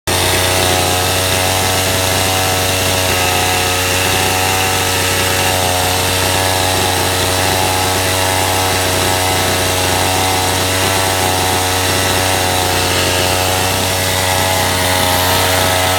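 Husqvarna 51 two-stroke chainsaw engine running steadily at a fast idle, with no revving. The idle is set too high because the newly replaced carburettor has not yet been adjusted.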